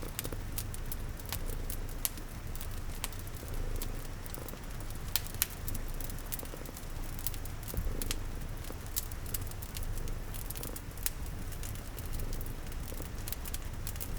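A cat purring steadily, mixed with the irregular pops and crackles of a wood fire and a soft, even hiss of rain.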